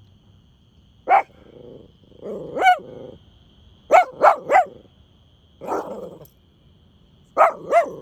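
Puppy barking in sharp, high barks, about seven in all, including a quick run of three about four seconds in, with low growls between them.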